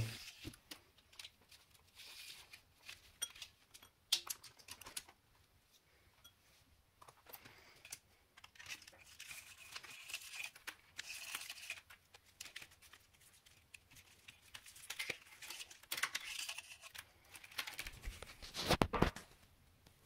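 Faint, scattered rustling and clicking of wires and a 3D-printed plastic box being handled on a table, with a louder rustling scrape shortly before the end.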